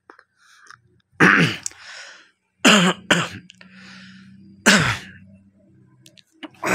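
A person coughing five times, each cough a short harsh burst with a dropping voiced tail, two of them in quick succession. A faint low hum runs underneath.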